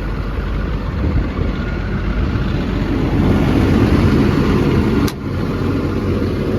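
Cummins diesel engine of an XCMG XE210CU track excavator running steadily, louder for a couple of seconds, with a sharp click about five seconds in.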